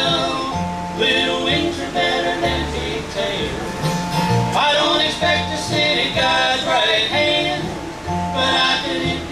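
A bluegrass band playing live: acoustic guitar and mandolin over a steady upright bass line.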